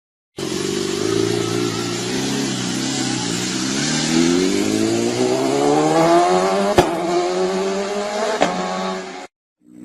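An engine running and then accelerating, its pitch rising steadily for a few seconds, with two sharp clicks near the end before it cuts off.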